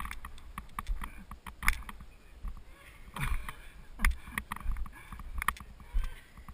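Mountain bike rolling fast down a steep dirt trail: irregular clicks and knocks of the bike and camera mount rattling over bumps, over a low wind rumble on the microphone.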